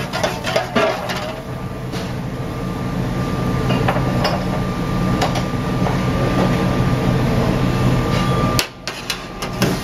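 Worcestershire-based sauce boiling hard in a black steel skillet on a gas burner: a dense, steady bubbling sizzle over a low hum. A few knocks of the pan against the burner grate in the first second.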